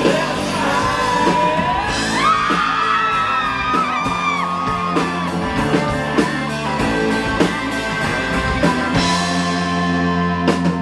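Live rock band playing in a club hall: steady drum beat with bass and electric guitar, and a gliding, wailing melodic line through the first half.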